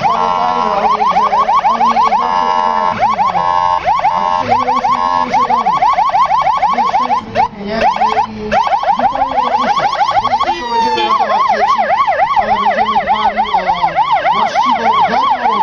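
Emergency vehicle's electronic siren cycling through its tone patterns: rapid yelping sweeps broken by short steady tones, a brief break about seven seconds in, then a slower, even up-and-down wail.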